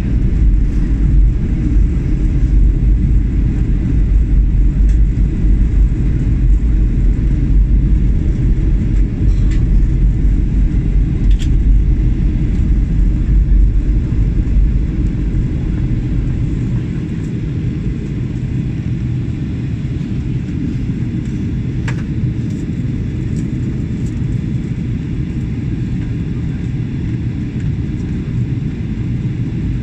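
Jet airliner cabin noise at a window seat: a steady deep rumble of the engines and airflow past the fuselage on the approach to landing. The deepest part of the rumble eases and the noise drops a little about halfway through.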